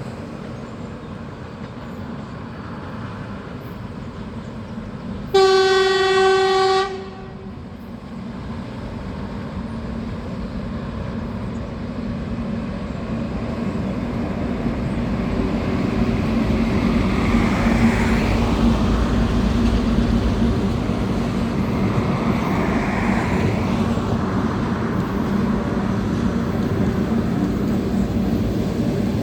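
A passenger train's locomotive horn sounds one blast of about a second and a half, a single steady note with many overtones. After it the rumble and wheel-on-rail noise of the train grow louder over about ten seconds and then hold steady.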